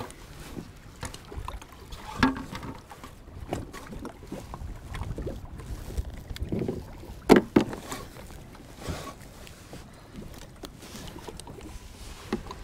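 Scattered knocks and thumps of handling on a kayak: a plastic measuring board set across the hull and a lake trout being lifted, the loudest a pair of knocks about seven seconds in. Underneath runs a steady wash of wind and small waves.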